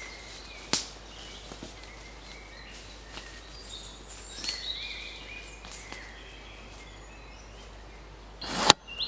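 Countryside ambience: birds chirping faintly over a steady hiss, with a sharp click under a second in and a louder, sudden click near the end.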